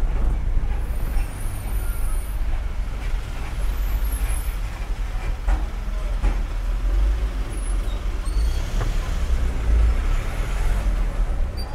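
Engine and road noise of a moving goods vehicle, heard from the vehicle as it is driven: a steady low rumble with a few faint knocks.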